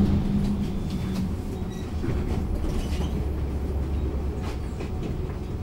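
Bombardier Flexity Outlook C low-floor tram running on its track: a steady low rumble of wheels on rail with a few sharp clicks, and a steady electric drive tone that stops about a second in.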